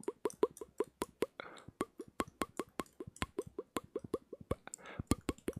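ASMR mouth sounds: a quick, even run of tongue clicks and pops, about five a second, each with a short hollow pitch, broken twice by a soft breath.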